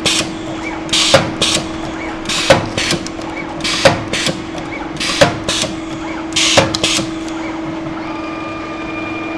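Automatic hot stamp machine for plastic seals cycling: a sharp clack followed by a short hiss about every 1.4 seconds, five times, over a steady hum. The strokes stop about seven seconds in, leaving the hum and a faint thin whistle.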